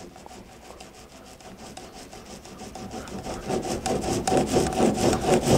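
Small paint roller rolled back and forth over wet paint on a car hood, a scratchy rolling sound that grows louder toward the end.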